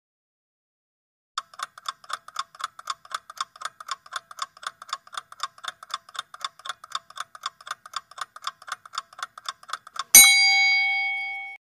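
Countdown timer sound effect: fast, even clock ticking at about four ticks a second, ending about ten seconds in with a single bell ding that rings for about a second and a half as the timer runs out.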